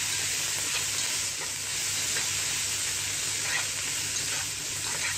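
Shredded vegetables and scrambled egg sizzling steadily in a hot nonstick pan as they are stirred and tossed with a spatula, with a few light scrapes of the spatula.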